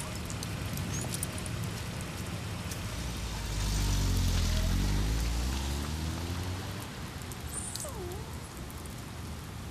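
Steady rain falling on pavement. About three seconds in, a car engine swells and rises in pitch as the car drives off, then fades. Near the end a dog gives a short whimper.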